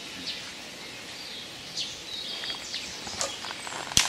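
Scattered short, high bird chirps over steady open-air background noise, with one sharp click near the end.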